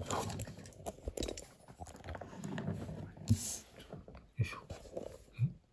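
Handling noise from a printed paper sticker sheet being moved about and slid across a wooden tabletop: rustling and scraping, a brief sliding hiss past the middle, and a few soft knocks.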